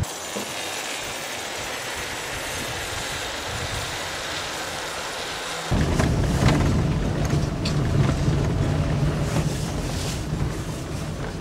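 A steady rushing hiss, then from about six seconds in a vehicle's engine running steadily as it drives over a rough dirt road, with knocks and rattles from the bumpy track.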